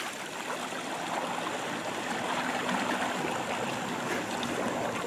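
Lake water lapping and trickling close by in a steady wash, with a faint steady hum underneath.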